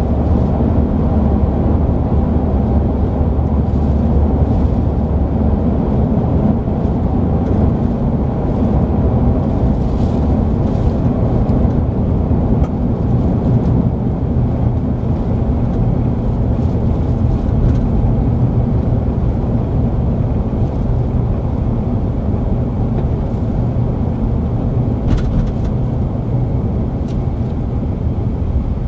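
Vehicle driving steadily on a paved road, heard from inside the cabin: a constant low rumble of engine and tyre noise, with a few faint ticks.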